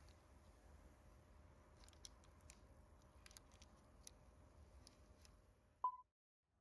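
Near silence: faint room tone with a few soft light clicks, then one short ringing ping near the end.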